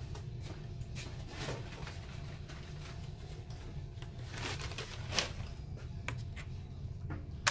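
Faint scattered small taps and rustles of handling at a workbench, over a steady low hum, with a sharper click about five seconds in and another at the end.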